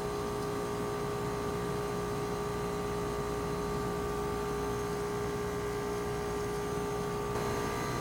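Goodman 2-ton heat pump's compressor running steadily with the outdoor fan disconnected, a constant hum with a strong mid-pitched tone. The unit is in heating mode with no airflow over the outdoor coil, pulling the suction pressure down to imitate cold weather for a defrost test.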